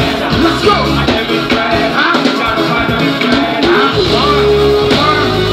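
Loud live hip-hop music from a concert stage, played by a band with a drum kit through the sound system, with heavy bass.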